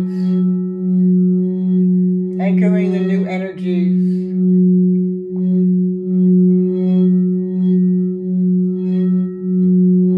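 High-heart crystal singing bowl sounding a sustained low tone with a higher overtone, its loudness swelling and fading in a slow even pulse about three times every two seconds. A voice sounds briefly over it about two and a half seconds in.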